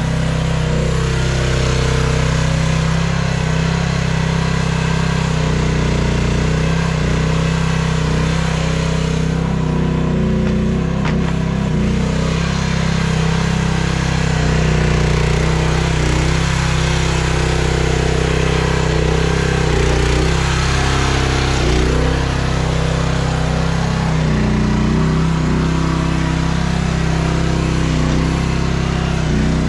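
A Chinese mini excavator's gasoline engine running steadily, its pitch shifting a little now and then.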